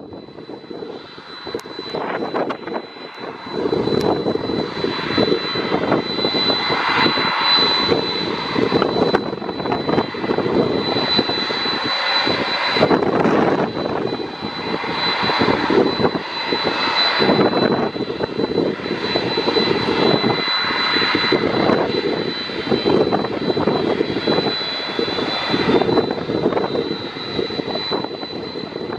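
Jet engines of a Boeing 767-300 running at low power: a steady high whine over a wavering rumble that grows louder about four seconds in. Near the end a second whine creeps up in pitch.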